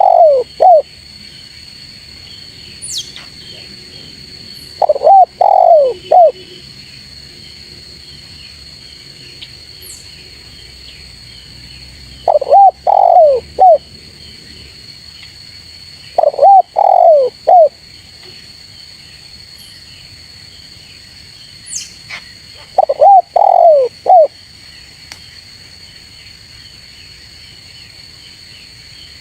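Spotted dove (tekukur) cooing: short phrases of a few coos each, repeated five times several seconds apart. A steady high-pitched drone runs underneath.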